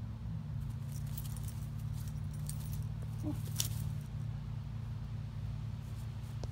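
A dog's collar tags jingling lightly in scattered bursts during the first four seconds as she moves, over a steady low hum.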